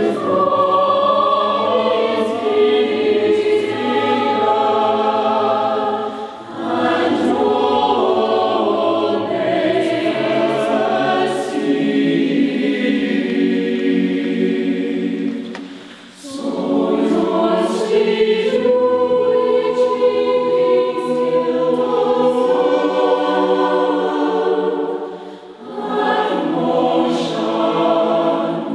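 Mixed-voice choir singing in sustained harmony. Long phrases are broken by brief breaks about six seconds in, about halfway through, and about three seconds before the end.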